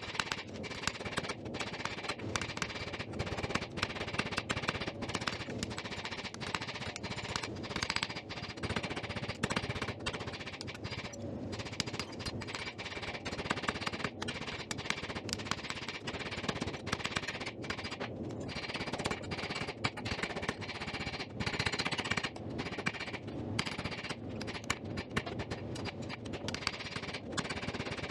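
Hand hammer striking a red-hot steel bar on an anvil: a long run of quick, ringing blows, several a second, with a few short pauses, as the steel is drawn out into a handle.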